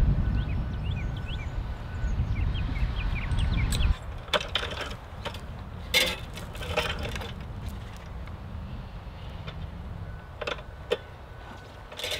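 Wind rumbling on the microphone with faint bird chirps, until the rumble drops away suddenly about four seconds in. Then come scattered metallic clinks and rattles from fence wire and hardware being handled, the sharpest near the middle and again near the end.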